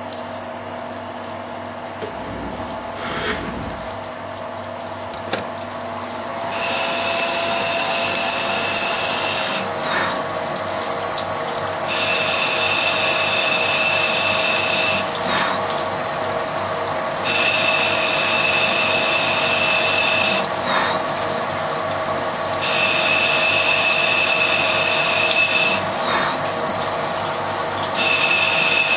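CNC lathe cutting an internal thread in a stainless steel part under flowing coolant. The machine runs steadily with a splashing hiss. From about six seconds in, a high whine sounds on each threading pass, about three seconds at a time and about every five and a half seconds, with a click between passes as the tool returns.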